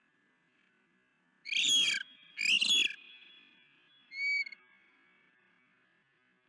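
Osprey on the nest giving alarm calls at an intruder flying over: two loud, harsh calls close together, then a shorter, thinner whistled call about a second and a half later.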